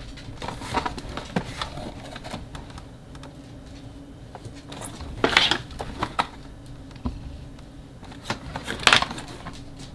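A packaged box being handled and turned over in the hands, with scattered taps, clicks and rustles of the packaging. The loudest rustles come about five seconds in and again near nine seconds.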